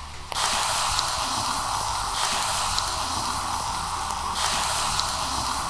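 Beef shoulder-loin steak sizzling on a cast-iron grill over wood embers: a steady hiss that starts suddenly just after the beginning, with a few faint pops.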